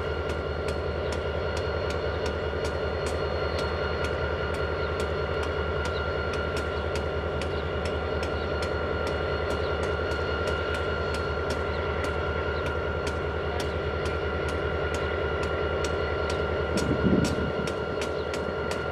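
Canadian Pacific diesel-electric freight locomotives idling while stopped, a steady low engine drone with a thin high whine over it. Near the end a brief louder sound drops quickly in pitch.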